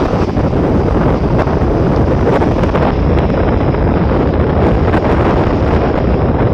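Wind buffeting the microphone over the sound of small waves breaking and washing onto the shore.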